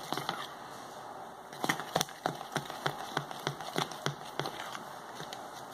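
A metal fork stirring a thick powdered-sugar and lemon glaze in a plastic measuring jug, clicking against the jug's sides about three times a second from about a second and a half in.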